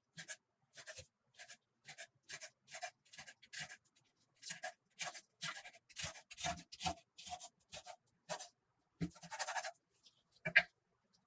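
A utensil scraping across sliced bread in short repeated strokes, about two a second, as when spreading tomato sauce. A longer scrape comes near the end, then a sharper, louder one.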